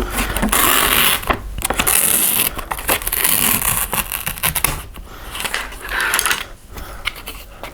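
Close-miked eating of Yukgaejang Sabalmyeon cup ramen: a run of hissing slurps and small clicks, loudest in the first half and quieter toward the end.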